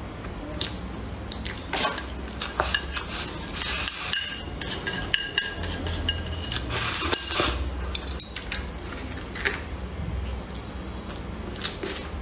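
Chopsticks clinking and scraping against a ceramic bowl as the last rice is scooped up: an irregular run of sharp clinks, some leaving a short ring from the bowl, busiest in the middle.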